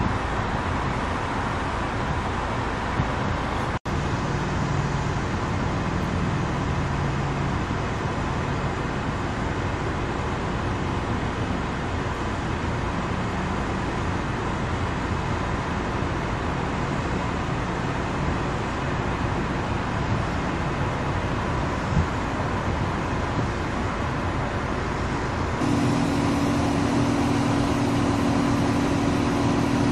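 Steady rushing road noise of a moving car, broken by a momentary dropout about four seconds in. A steady low hum joins it near the end.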